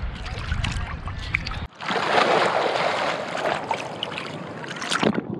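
Sea water sloshing and splashing against a camera held at the surface. About a second and a half in, the low rumble cuts out suddenly and a dense, even hiss takes over as the camera dips into the water, with splashes again near the end.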